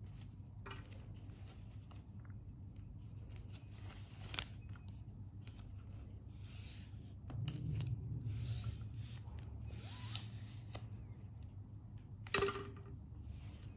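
Handling noise of a fabric bottle strap and its plastic buckle and lid handle being threaded and adjusted: rubbing and rustling, with a sharp click about four seconds in and a louder click near the end.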